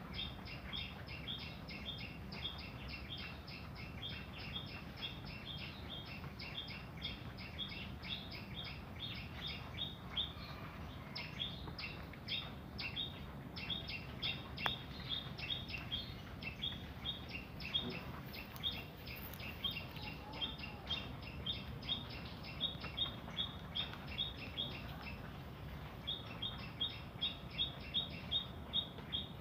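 A small bird chirping over and over in short, high, evenly spaced notes, about three a second, with a brief pause near the end, over a steady low background hum.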